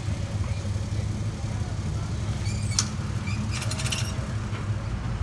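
Boat outboard motor idling steadily as it maneuvers toward the trailer. A sharp click about three seconds in and a short clicking rattle just after.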